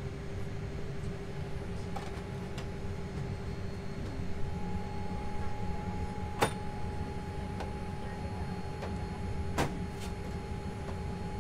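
Steady hum of a Boeing 787 cabin's air system at the gate, with a constant tone. Two sharp clicks, about six and a half and nine and a half seconds in, come as the door's slide-arming lever is worked.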